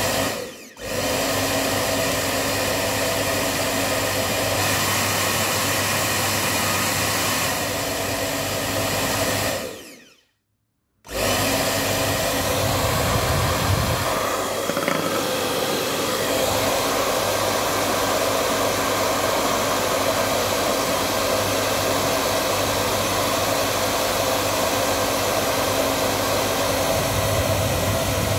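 Powertec TR-901 2500 W hair dryer running with a steady whoosh of airflow and motor hum. It is switched off about ten seconds in and switched back on about a second later.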